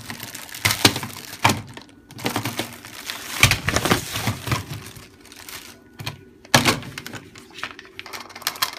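Clear plastic bag crinkling and crackling as a red plastic STUFZ burger press is handled and taken out of it, with irregular sharp clicks and knocks of the hard plastic parts.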